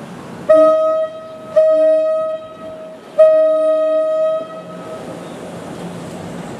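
NJ Transit train horn sounding three blasts, each longer than the last: a short one, a longer one, then one of over a second. Under the horn is the steady noise of passenger cars rolling past.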